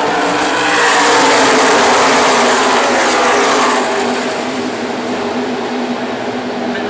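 A pack of NASCAR Truck Series race trucks passing at full racing speed. Their V8 engines are loudest over the first few seconds, with the engine note falling as they go by. After about four seconds the sound drops to a steadier, lower drone as the pack moves away.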